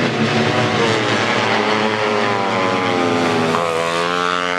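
Tuned 150cc four-stroke underbone racing motorcycles running hard at high revs, with one engine's pitch climbing over the last second as it accelerates.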